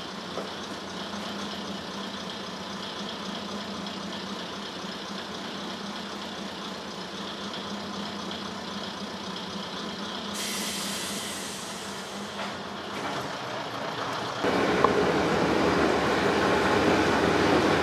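Steady rumble of a Kiha diesel railcar, heard from inside the passenger cabin. A high hiss rises over it for a couple of seconds past the middle. About three-quarters of the way in, the noise suddenly becomes much louder and stays loud.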